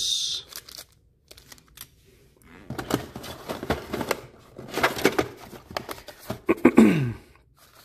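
Crinkling of a small plastic bag, then a run of rustles, taps and clicks as cardboard packaging is handled inside an open thermostat box. Near the end comes a brief, louder sound that falls in pitch.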